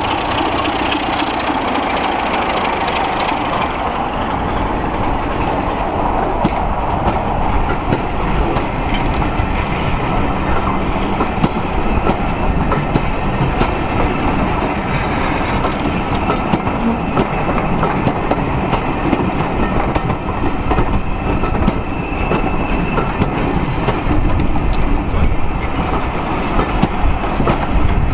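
A BR Class 33 diesel locomotive pulls away past, its engine running, then a long train of passenger coaches rolls by with wheels clicking over the rail joints.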